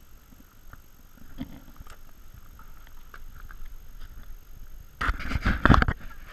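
Footsteps and scuffing on loose shale rock, as scattered knocks and clicks, then a louder cluster of knocks and rubbing about five seconds in.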